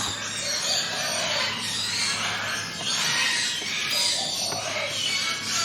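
Several birds singing and chirping over one another in a dense, continuous chorus, with short high trills and lower warbled phrases recurring every second or so. A steady low hum runs beneath.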